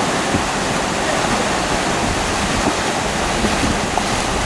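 Rushing river water: a steady, even roar of current.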